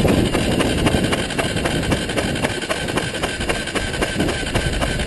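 Honda XR 250 Tornado's air-cooled single-cylinder engine idling steadily, with a rapid even ticking and a steady whine, after the engine had been swamped with water.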